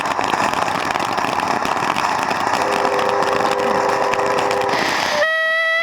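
A ground fountain firework spraying sparks with a steady, loud hiss and crackle. A shrill whistle from a whistling firework starts near the end.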